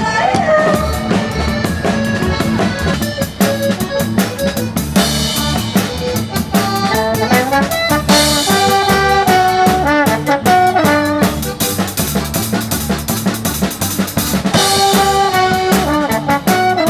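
Live band playing a tune: saxophone and brass horns over a steady drum beat.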